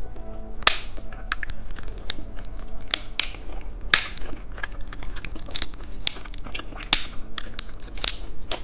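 Close-miked chewing of a filled gummy candy: irregular wet clicks and mouth smacks.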